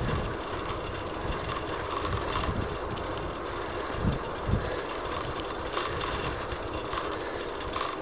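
Riding noise from a bicycle on an asphalt road, recorded on a compact camera's built-in microphone: steady wind rush on the microphone and rolling rumble, with a few low knocks.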